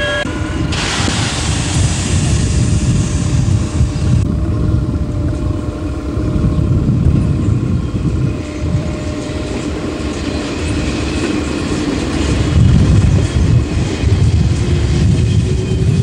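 Electric multiple-unit train moving off from a station platform, a steady low rumble with a faint hum. A loud hiss sounds over the first few seconds.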